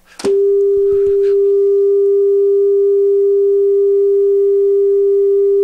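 400-cycle test tone played from an RCA 8-track test tape on an Akai CR-81D deck: a brief click, then a steady pure tone that comes in about a quarter second in and holds unchanged. Its pitch measures just under 400 cycles, within the 395 to 405 spec, so the deck's replacement motor is running at the right tape speed.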